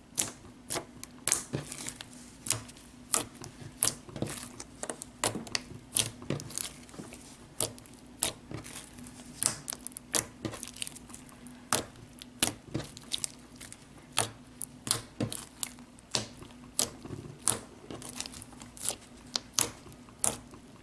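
White slushy slime being squished and stretched by hand: irregular sharp pops and crackles, several a second.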